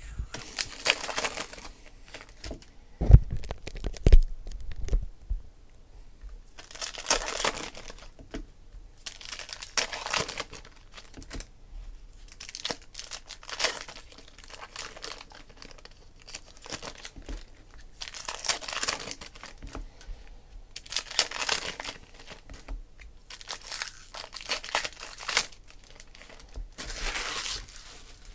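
Foil trading-card packs being torn open and their wrappers crinkled, one after another, in rustling bursts every few seconds. Two dull thumps, the loudest sounds, come about three and four seconds in.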